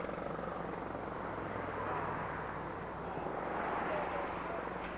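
Steady drone of engines and vehicle traffic, with faint rising and falling tones in the middle as something passes.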